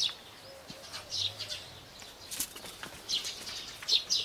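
Small birds chirping in short, scattered high calls.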